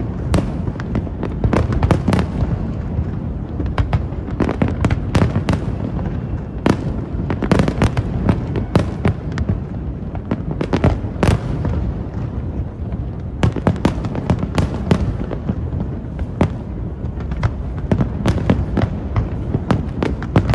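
Aerial fireworks display going off in a dense, irregular run of sharp bangs and crackles over a steady low rumble of bursts.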